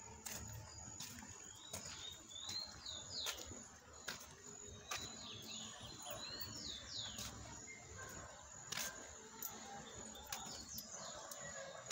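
Small birds chirping in short quick calls that slide up and down in pitch, in two bunches a few seconds in and around the middle, over a faint outdoor background with a few sharp clicks.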